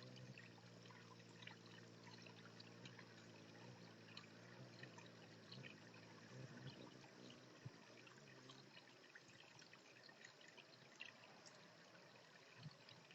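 Faint trickling water with scattered small high ticks and splashes. A low steady hum lies underneath and fades out about two-thirds of the way through.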